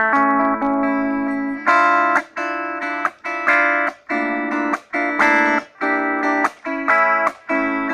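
Guitar playing chords in a rhythm of short strokes, each cut off sharply, with a longer held chord at the start.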